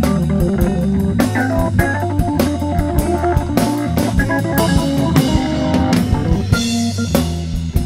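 Live soul-jazz blues on Hammond organ with a drum kit keeping a steady swinging beat, bass and guitar in the band, and fast runs of notes over the top.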